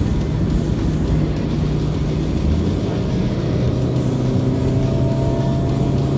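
Steady road and engine noise inside a car cruising on a highway, with music playing in the car.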